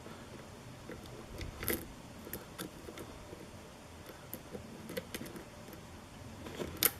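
Lock pick and tension wrench working the pins of a pin-tumbler challenge lock: faint, scattered small metallic clicks and scrapes, with a sharper click near the end.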